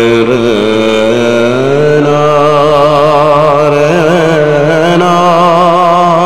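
Background music: a man singing a wordless alaap in a South Indian classical style, holding long unbroken notes that waver and bend in slow ornaments.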